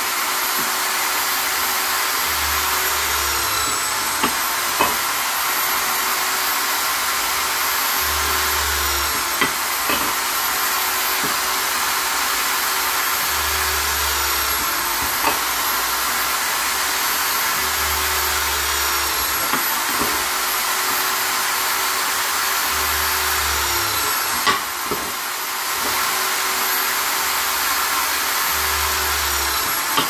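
Vonder corded electric drill, mounted in a drill press stand, running continuously with a steady motor whine. Every five seconds or so its pitch sags briefly as the bit is fed into a strip of wood, with a few small knocks of wood being handled.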